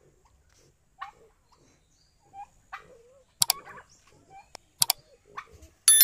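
Domestic turkeys in a farmyard giving short, scattered calls, with two sharp double clicks in the middle. Near the end a bright ringing chime sounds.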